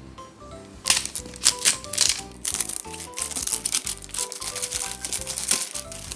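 Plastic wrap being pulled off a toy box, crinkling and crackling again and again from about a second in, over background music with short plucked-sounding notes.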